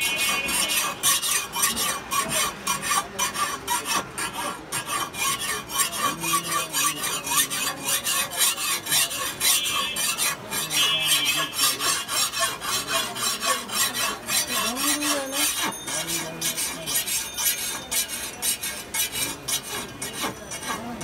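Steel hand tool filing and scraping along a steel boti blade in rapid, repeated strokes, rasping off rust and dressing the edge.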